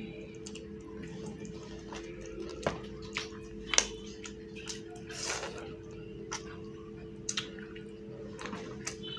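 Close-miked eating sounds of a person eating rice and fish curry by hand: wet mouth smacks and chewing clicks at irregular intervals, the sharpest a little under halfway through, over a steady low hum.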